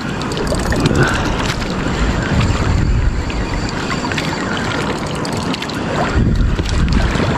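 Wind buffeting the microphone over choppy sea water around a small boat, a steady rushing noise with gusty low rumbles.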